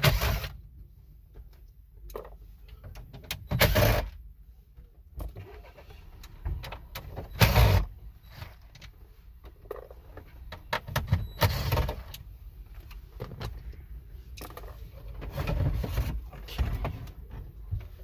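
Handling noise of plastic car dash parts and tools: scattered clicks, clatter and scrapes, with louder knocks and rattles about every four seconds as the factory radio is worked out of the dash.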